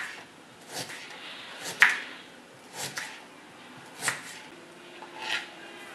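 Kitchen knife slicing through peeled ginger onto a plastic cutting board: a sharp chop about once a second, six in all.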